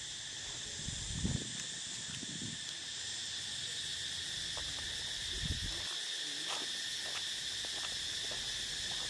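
Steady, high-pitched insect chorus droning throughout, with two short low thumps, about a second in and again about five and a half seconds in.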